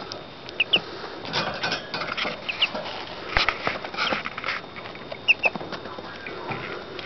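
Newly hatched Muscovy ducklings peeping, short high chirps that come in quick pairs, over scattered rustling and a few sharp taps as they shuffle about on paper and towel.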